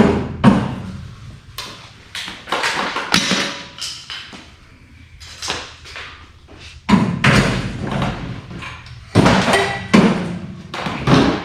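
Irregular knocks and clatter of metal parts and hand tools being handled, a dozen or so separate impacts with rustling between them.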